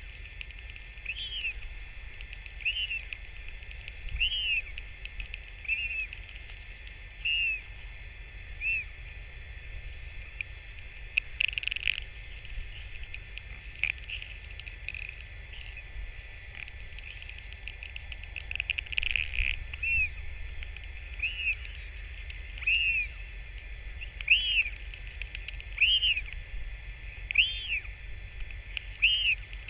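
A bird calling a short whistled note that rises and falls, repeated about once every one and a half seconds, with a pause of several seconds in the middle, over a low rumble.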